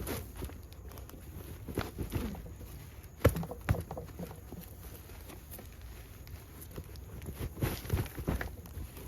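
Irregular rustling and scattered knocks of hands-on handling. The loudest are two sharp knocks about three and a half seconds in, with another cluster of knocks near the end.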